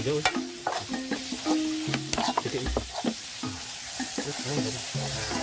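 Snails and shrimp being stir-fried in a metal wok: sizzling, with a spoon scraping and clicking against the pan. Water is poured into the pan near the end.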